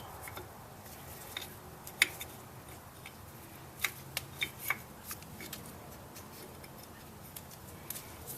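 Sharp metal clicks and clacks of a brake caliper, an old pad and a piston compressor being handled and fitted together. The loudest click comes about two seconds in, and a quick run of clicks follows between about four and five seconds.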